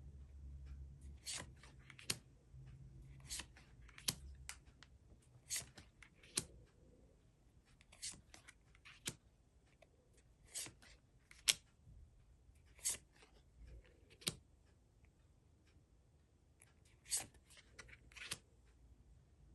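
Trading cards and their packaging being handled: a dozen or so short, crisp swishes and rustles, roughly one every second, as cards are slid off the stack one by one, with a short lull about three-quarters through.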